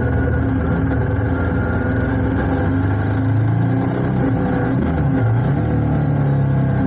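Ducati Multistrada motorcycle engine running steadily while riding along a road, its note shifting briefly about halfway through.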